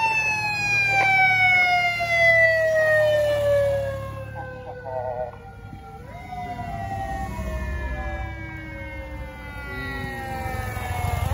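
Wailing siren of a rescue vehicle: the pitch climbs quickly, then slowly winds down for several seconds. About six seconds in it rises again and slowly falls away once more.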